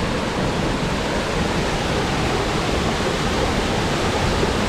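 Small creek waterfall pouring, a loud, steady rush of water.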